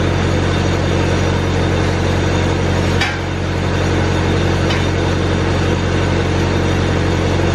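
Engine-driven welding machine running at a steady speed, a constant hum. There is a light click about three seconds in and another near five seconds.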